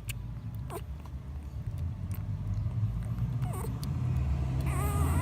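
Young puppies whimpering: short falling yelps about a second in and in the middle, then a longer wavering whine near the end, over a low rumble that grows louder.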